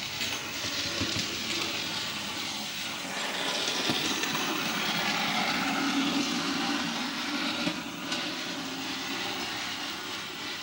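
Model railway locomotive running along the layout's track on test: a steady electric motor hum with wheel rumble, a little louder in the middle.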